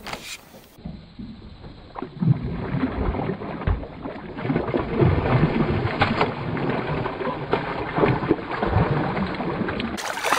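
Hooked largemouth bass splashing and thrashing at the water's surface beside the boat as it is reeled in, a rapid run of splashes and slaps that grows loud about two seconds in and keeps going.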